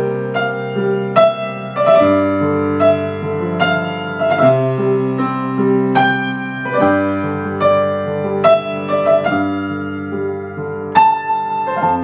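Piano playing slow held chords, with a new chord or note struck every second or two.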